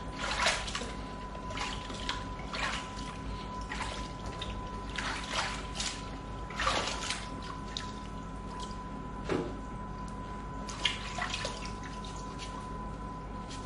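Hands swishing and kneading a climbing rope in a plastic tub of water: irregular splashes and sloshes, a few louder swishes among quieter trickling and dripping.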